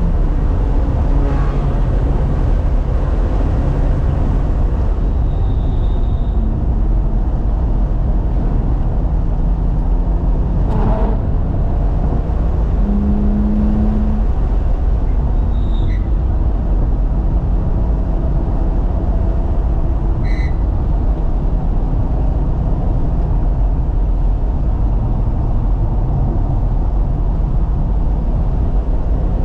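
In-cabin sound of a BMW F80 M3's twin-turbo inline-six being driven hard on a race track, its pitch rising and falling as the driver accelerates, brakes and shifts, over heavy road and wind rumble. A few brief high chirps come and go.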